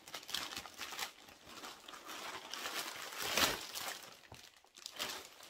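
Plastic packaging crinkling and rustling as a plastic mailer bag and the plastic-wrapped clothing inside are handled and pulled out, with a louder rustle about three and a half seconds in.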